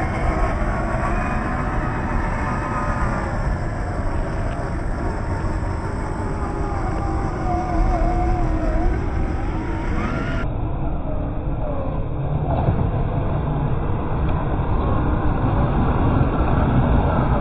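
1/10-scale MST CFX RC crawler's 27T brushed electric motor and gears whining, the pitch wavering up and down with the throttle, over a steady low rumble. The sound turns abruptly duller about ten seconds in.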